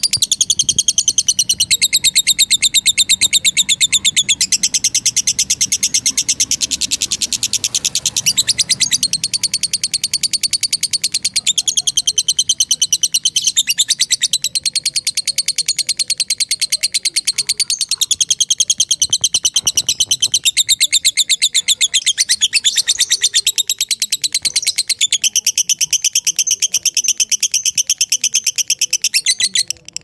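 Masked lovebird (yellow-collared lovebird) giving its long chattering song, the kind lovebird keepers call ngekek: a shrill, very fast run of notes that goes on almost without pause, with a few brief breaks.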